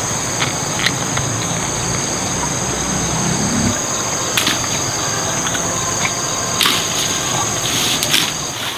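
Steady high-pitched insect drone, with a few sharp clicks or knocks scattered through it.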